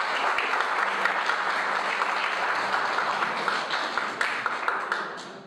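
A group of guests applauding, many hands clapping together, the clapping dying away near the end.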